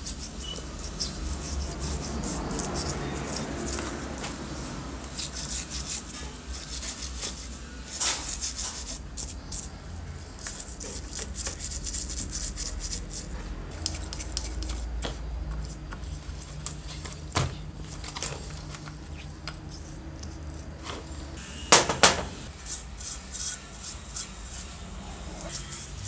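A toothbrush scrubbing small metal drill parts in a plastic tub of cleaning liquid: quick, scratchy bristle strokes in runs, with a few sharp knocks as the parts bump the tub, the loudest about two-thirds of the way through.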